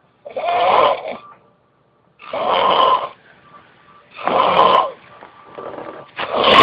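A person snoring loudly, four rasping snores about two seconds apart, with a weaker one just before the last.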